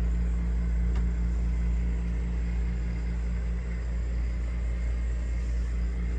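Steady low mechanical hum, an even drone with a constant pitch.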